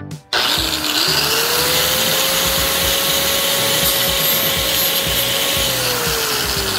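Electric angle grinder with a flap sanding disc starting up, its whine climbing to a steady pitch within about a second, then grinding away cured expanding spray-foam filler. The motor's pitch falls near the end as it bogs or slows.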